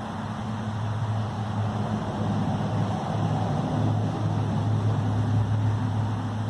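A low, steady droning hum with a rough noisy edge, growing louder over the first few seconds: the kind of unexplained drone reported as a strange sound in the sky.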